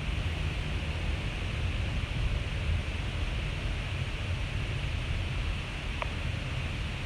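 Rain falling steadily, an even hiss over an uneven low rumble, with a brief faint rising tone about six seconds in.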